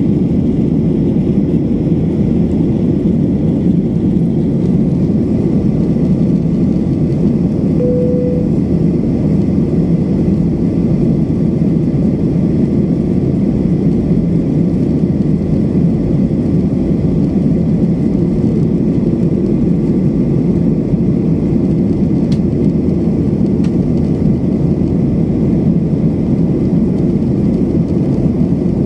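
Steady roar of a jet airliner's cabin in flight, engine and airflow noise heard from a window seat, low and unchanging. A short single tone sounds briefly about eight seconds in.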